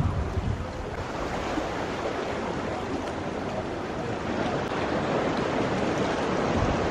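Steady wash of sea water at the shore, with wind buffeting the microphone in the first half second.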